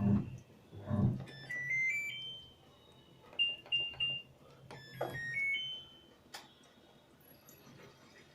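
Washing machine control panel beeping as its buttons are pressed. A short rising run of electronic tones comes about one and a half seconds in, then three quick equal beeps, then another rising run at about five seconds.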